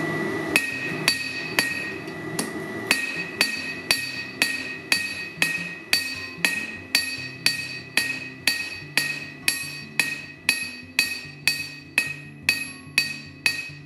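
Hand hammer striking a hot steel knife blank on an anvil, about two blows a second, each with a short metallic ring, drawing out the blade's bevel. A brief pause comes after the first three blows, and faint background music runs underneath.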